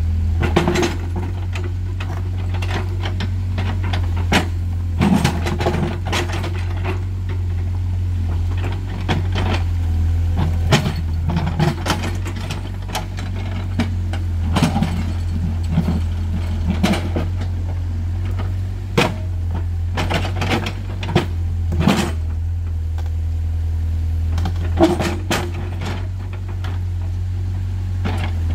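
Excavator engine running with a steady low drone, while the bucket scrapes and moves rocks, giving frequent sharp knocks and clatters at irregular intervals.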